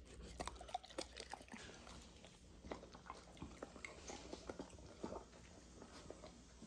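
Dog chewing a hand-fed piece of lamb chop: faint, irregular crunching and smacking bites.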